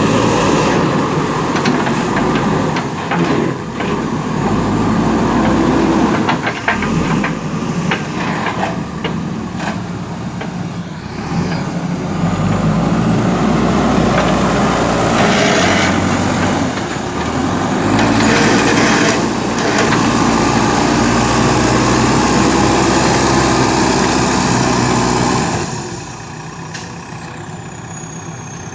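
JCB 3DX backhoe loader's diesel engine running and revving up and down as the machine works, with scattered knocks. The engine drops back to a lower, quieter run near the end.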